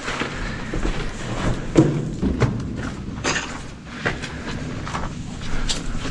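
Irregular footsteps with knocks and scuffs, the loudest a thud a little under two seconds in.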